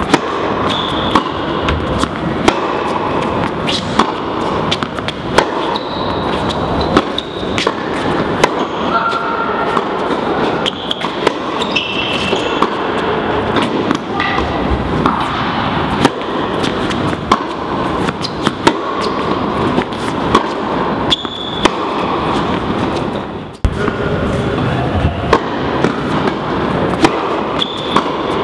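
Tennis balls cracking off rackets and bouncing on a hard indoor court, the sharp knocks echoing through a large hall. Under them run a steady din of voices and brief high squeaks.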